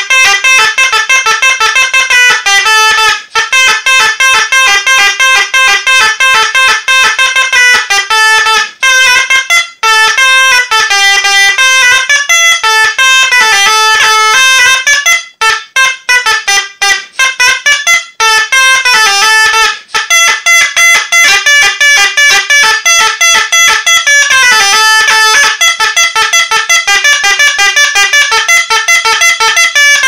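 Medieval shawm in G, a wooden double-reed woodwind, playing a loud melody of quick, separated notes in a bright, buzzy, horn-like tone.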